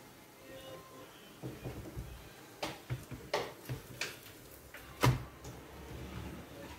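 Hands working thin oiled dough sheets on a wooden board and a tray: a handful of light knocks and taps, the loudest about five seconds in.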